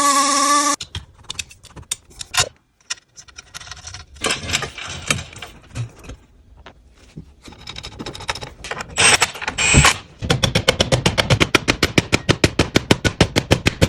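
Workshop tool work: a power tool whines briefly and stops, then loose clicks and knocks of tools and parts being handled. Near the end comes a fast, even clicking of about nine or ten clicks a second.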